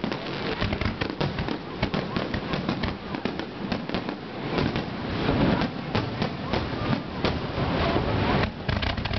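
Rapid volley of aerial fireworks: many bangs and crackles in quick succession with no pause, growing louder about five seconds in.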